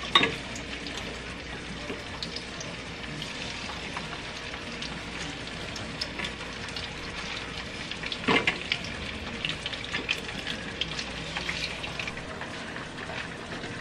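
Pieces of fresh fish frying in hot oil in a frying pan: a steady sizzle with fine crackles, flaring briefly louder twice, right at the start and about eight seconds in, as more pieces go into the oil.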